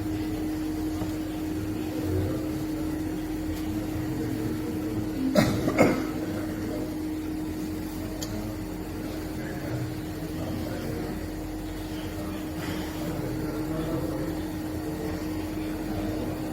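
Steady mechanical hum with two quick knocks about five and a half seconds in.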